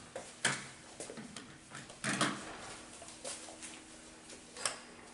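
Small knocks and clatters of toy dishes and play-kitchen parts being handled by a toddler: a few louder knocks, about half a second in, about two seconds in and near the end, with lighter ticks and taps between.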